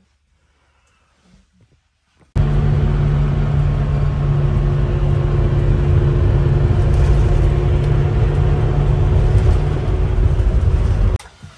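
Loud, steady drone of a minibus's engine and road noise, heard from inside the cabin. It starts suddenly about two seconds in and cuts off suddenly near the end.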